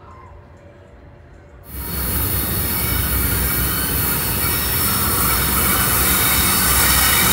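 Providence and Worcester diesel freight train approaching, a deep engine rumble under a wash of rail and wheel noise with a high wheel squeal, growing steadily louder. The sound cuts in suddenly under two seconds in, after a quieter stretch.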